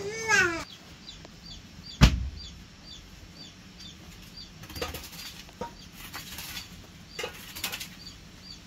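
Chicks peeping in short, high chirps about twice a second. A single sharp knock about two seconds in is the loudest sound, and near the end a wooden pole scrapes softly over a dirt floor a few times.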